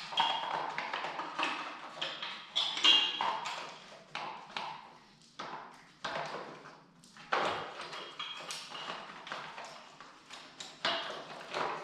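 An irregular run of sharp taps, knocks and clicks with brief ringing: hard parts being handled and pressed into place while an air line is fitted at the front of a motorcycle.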